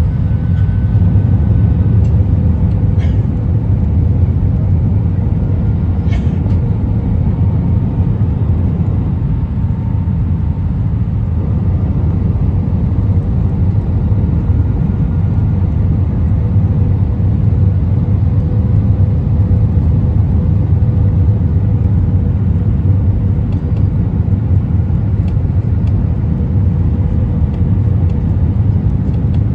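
Steady airliner cabin noise on approach, with the flaps extended: a loud low rumble of engines and airflow, with a faint steady hum above it. A few faint clicks come in the first six seconds.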